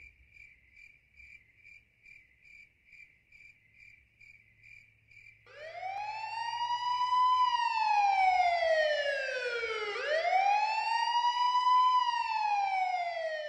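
A faint high chirp pulsing about two and a half times a second, then about five seconds in a police siren wails in, slowly rising and falling twice before fading out.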